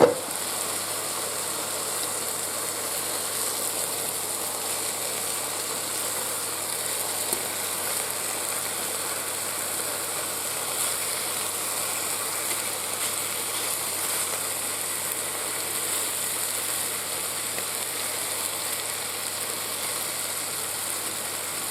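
Chicken breasts sizzling in butter in a Cosori multicooker pot on browning mode: a steady frying hiss with a few small clicks.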